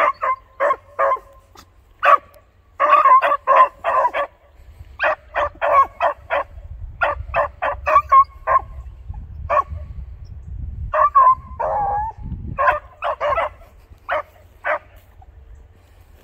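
Beagles barking on a trail: runs of short, quick barks, several a second, with gaps between the runs and one longer bark that drops in pitch. The barking stops near the end.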